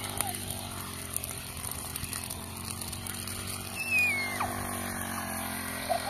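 A steady engine hum runs throughout. A short, falling whistle-like chirp about four seconds in is the loudest moment.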